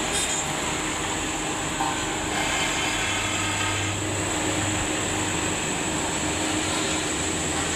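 A Sakai road roller's engine running steadily as the machine rolls over fresh asphalt, a constant mechanical drone with a low hum that swells for a moment about two seconds in.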